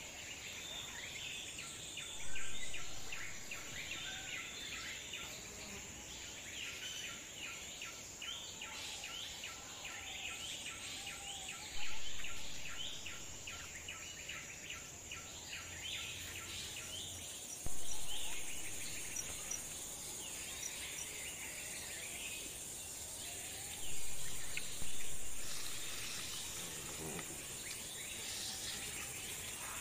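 Outdoor ambience of insects and birds: a steady high insect drone, scattered bird chirps, and, for the first half, a fast run of evenly spaced chirps. A few dull bumps rise suddenly and fade over a second or two.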